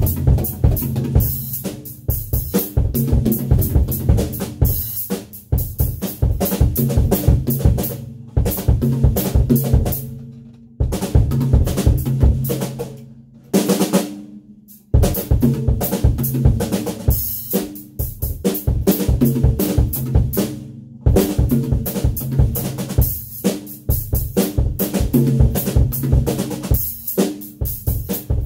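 DW acoustic drum kit played hard and steadily, bass drum, snare, toms and cymbals, in grooves and fills working triplets into 4/4 time. Two short breaks come near the middle, the second letting a drum ring out before the playing starts again.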